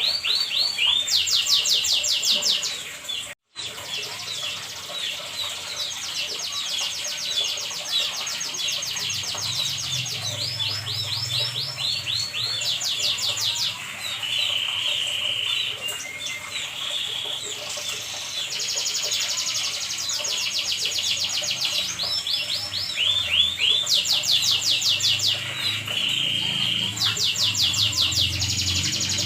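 Domestic canary singing a long, unbroken song of fast high trills and rolls. It moves from one run of rapidly repeated notes to another every second or two. The song cuts out completely for a moment about three seconds in.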